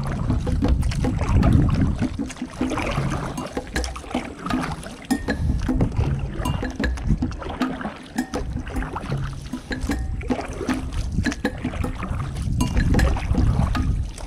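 Wind buffeting the microphone in an uneven low rumble, with many small clicks and knocks scattered through.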